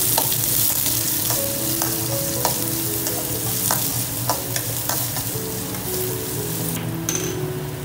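Chopped onions sizzling in hot oil in a stainless steel kadai as the tempering is sautéed, stirred with a perforated metal ladle that clicks and scrapes against the pan. The sizzle thins about seven seconds in.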